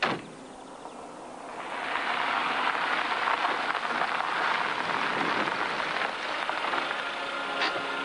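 A sharp knock right at the start, then a Saab 900 convertible driving along a gravel track, its tyres crunching steadily on the gravel, growing louder from about a second and a half in as the car comes closer.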